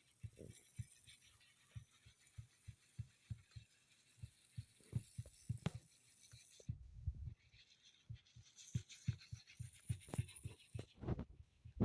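Soft, low thumps and knocks, irregular at a few per second, with a few sharper clicks over a faint hiss.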